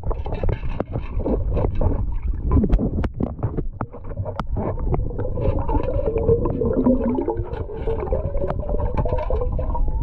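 Rumbling water noise with a scatter of sharp clicks and knocks in the first half. From about halfway, a wavering, warbling tone comes in over the rumble.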